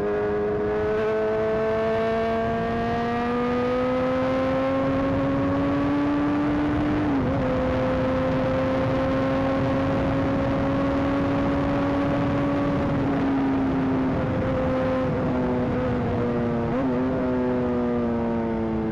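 Honda CBR 600 sport bike's inline-four engine pulling at road speed, over a steady rush of wind. The revs climb slowly for about seven seconds, hold level, then ease off gradually toward the end.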